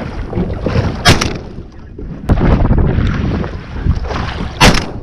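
Two shotgun shots about three and a half seconds apart, over steady wind buffeting the microphone and water slapping the boat.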